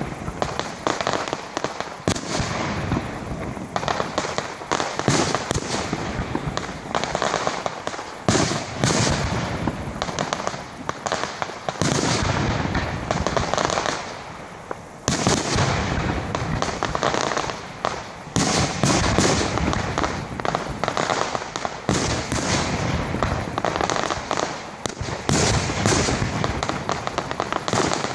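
Fireworks display: aerial shells bursting in rapid, overlapping succession, a near-continuous barrage of bangs and crackle with a brief lull about halfway through.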